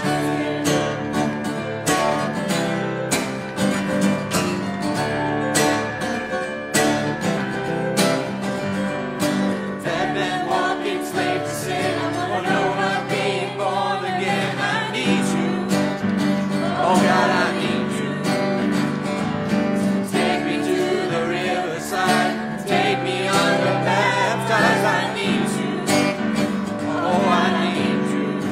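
A live worship band plays a contemporary song on piano and guitar, with voices singing over it.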